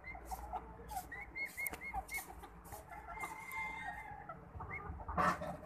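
Chickens clucking, with a run of short, high chirping notes in between. A louder, harsh call bursts out near the end.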